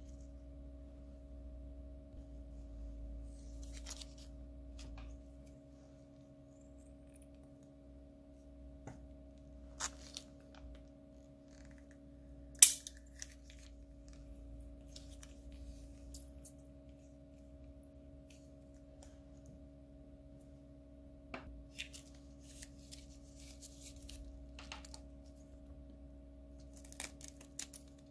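Plastic piping bag crinkling and crackling now and then as clear slime is squeezed out of it, with one sharp click about halfway through, over a steady low hum.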